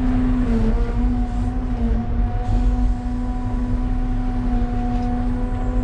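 Electric Cat 320 Z-Line excavator's electric motor and hydraulic pump whining steadily, heard from inside the cab over a low rumble. The pitch dips slightly a few times in the first couple of seconds.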